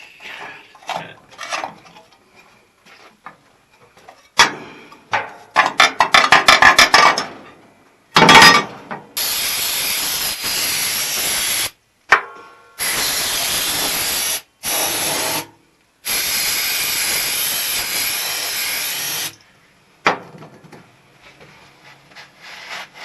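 Loud rapid metallic clattering and tapping for a few seconds, then four long bursts of steady hissing spray, each starting and cutting off abruptly, with faint scraping before and after.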